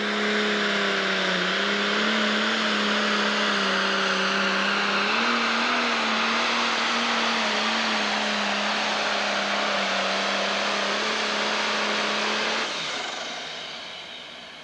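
Pro stock pulling tractor's turbocharged diesel engine running flat out under load, dragging the weight sled. The pitch holds high, with small dips and rises. About twelve and a half seconds in the engine is shut down and the sound drops away.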